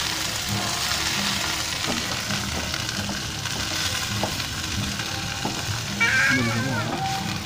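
Water spinach stir-frying in a wok: oil sizzling steadily while a wooden spatula scrapes and knocks against the pan. A brief high voice cuts in about six seconds in.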